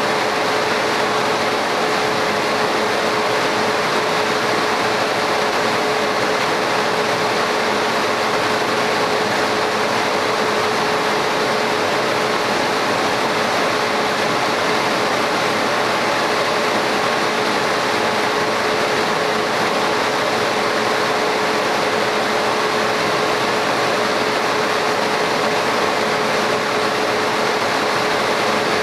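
Laser cutting machine running as it cuts into a tile: an even, unbroken rushing noise with a constant mid-pitched hum.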